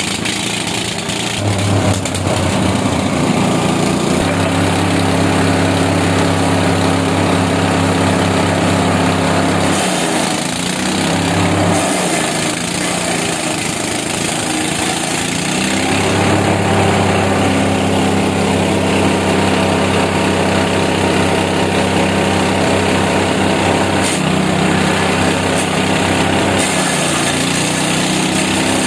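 Wood chipper's 7.5 hp gasoline engine running, with a steady engine note throughout. The note breaks up for several seconds around the middle and briefly near the end.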